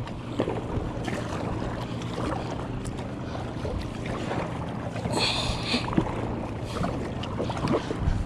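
Kayak paddling: water sloshing with light knocks and clicks from the paddle and hull, and wind on the microphone. A brief high-pitched sound comes about five seconds in.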